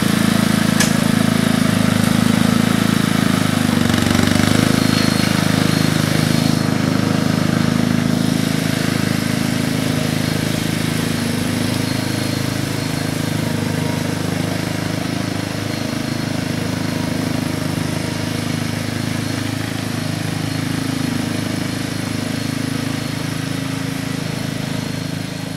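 Small engine of a motorized turf-laying carrier running steadily as it unrolls turf, its pitch wavering slightly and slowly fading as it moves away.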